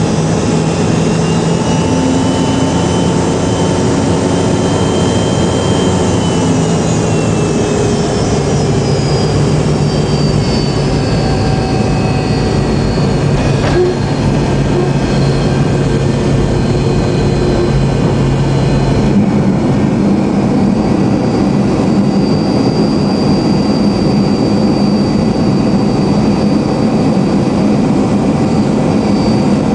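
Jet airliner's engines and rushing air heard from inside the cabin over the wing during landing: a steady loud noise with whining engine tones that slide down in pitch about six to ten seconds in and change again about nineteen seconds in. A brief knock is heard about fourteen seconds in.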